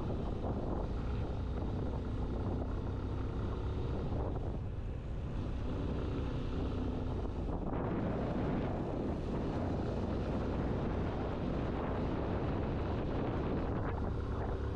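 Motorcycle engine running on the move and picking up speed, with wind buffeting the microphone.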